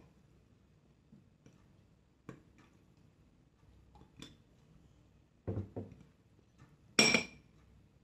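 Eating utensils (chopsticks and spoons) tapping and clinking against ceramic bowls, with a few scattered taps and one louder ringing clink about seven seconds in.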